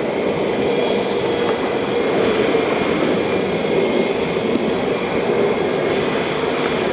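Honeybee swarm buzzing in a steady, dense drone around the hive box as loose bees fly about and settle into it.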